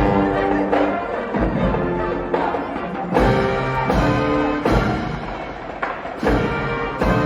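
Music with sustained pitched notes over repeated deep drum hits.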